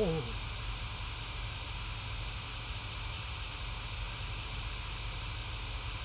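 Steady hiss with a low hum underneath, unchanging throughout; a brief bit of voice trails off right at the start.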